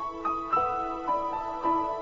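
Instrumental background music: a slow melody of sustained notes, a new note starting about every half second.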